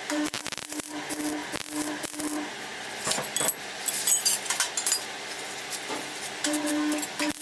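Metal clinking and tapping during metalwork, with many short sharp knocks and bursts of crackle. A low hum starts and stops in short pulses, several times.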